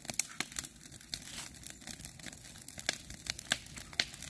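Dry grass and cut stalks rustling and crackling as they are gathered by hand, with irregular sharp snaps.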